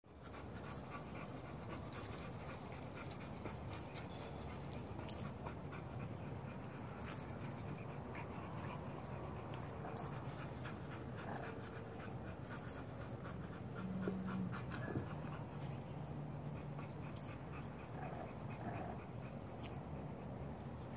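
Puppies panting as they play-wrestle and push a ball about, with scattered scuffing clicks and a few brief low sounds.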